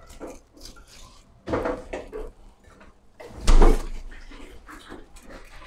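Knocks and scrapes of handling dishes as fried pork cutlets are moved with chopsticks onto a plate, with a soft knock about one and a half seconds in and a heavier thud about three and a half seconds in.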